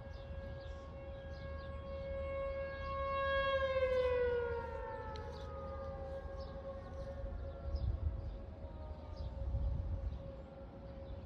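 Tornado warning siren sounding a steady wail. About four seconds in, one siren tone slides down in pitch while another holds steady.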